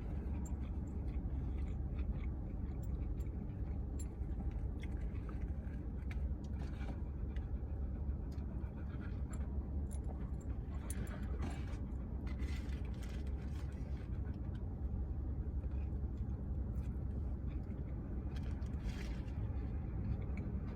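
Steady low hum of a parked car running, with scattered small clicks and a few short rustles from someone eating fast food, handling the food and packaging.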